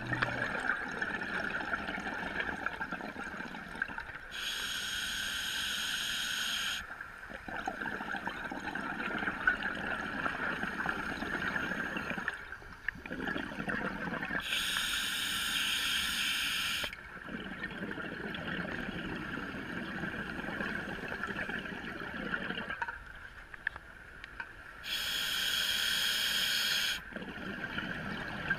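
Scuba diver breathing underwater through a regulator, heard from inside the water. Exhaled bubbles rush loudly three times, each for about two seconds and roughly ten seconds apart, over a steady high hum.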